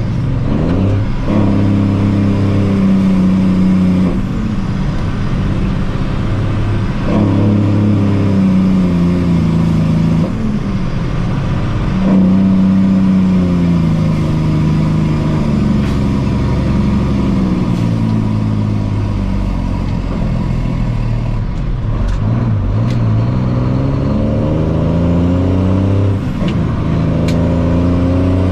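Heavy diesel engine running under changing load, its pitch rising and falling every few seconds as it revs up and drops back.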